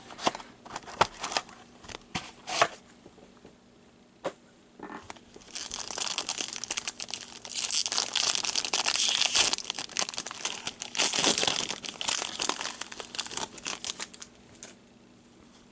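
Clicks and light knocks as a sealed hockey card box is handled. About five seconds in, a long stretch of plastic wrapping crinkling and tearing starts as the box is opened, and it stops shortly before the end.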